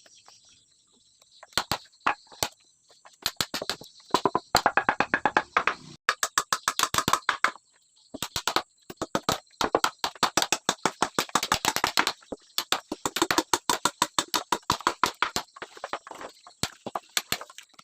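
Hammer knocking on wood in rapid runs of sharp blows, several a second, with short pauses between runs, over a steady high chirring of insects.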